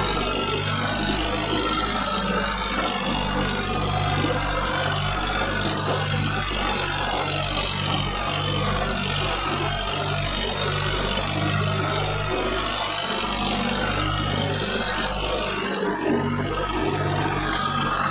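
A motor engine running at a steady speed under a loud, even rushing noise, with a short dip about three-quarters of the way through.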